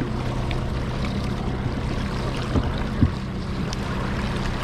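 Boat's outboard motor running steadily at trolling speed, with water and wind noise. Two short knocks come a little past the middle.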